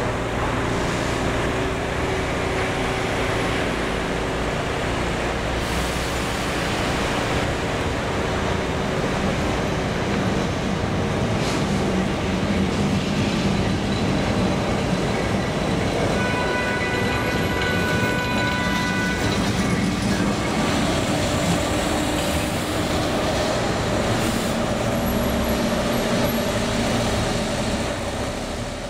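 Lisbon yellow Remodelado tram rolling past close by, its steel wheels running on street-embedded rails with a steady rumble amid street traffic. Just past the middle comes a high wheel squeal lasting a few seconds.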